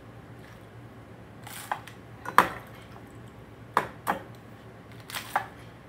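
Kitchenware clinking and knocking as food is handled: a handful of short, sharp clinks, the loudest a little before halfway.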